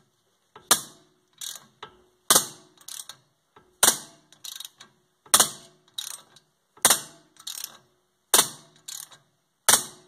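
Thread-locked wheel bearing screw on a BMW E39 front steering knuckle being worked loose with a ratcheting wrench. Each pull makes a harsh crack as the thread locker gives way, seven pulls about every one and a half seconds, and each is followed by a few lighter ratchet clicks as the wrench swings back.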